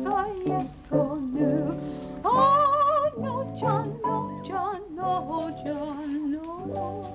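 A woman singing a slow song with vibrato over instrumental accompaniment, holding a long high note about two seconds in.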